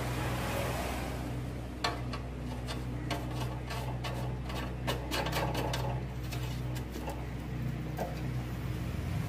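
Light metallic clicks and taps as a gas stove burner is seated and screwed down, over a steady low hum.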